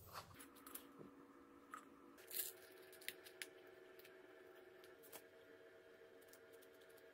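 Near silence broken by a few faint clicks and taps of small metal parts being handled, the motor mount and drive chain being fitted to a scooter deck; the strongest click comes about two and a half seconds in.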